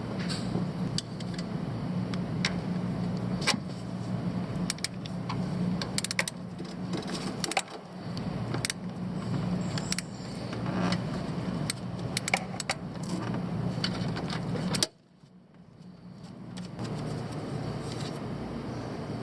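Irregular metallic clinks and taps, like hand tools working on the engine's belt drive, over a steady low hum. Everything drops out suddenly about fifteen seconds in, then comes back gradually.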